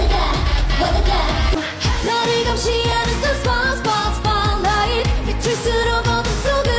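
K-pop song with high singing over a steady beat; the music changes abruptly about two seconds in, as one track is cut into another.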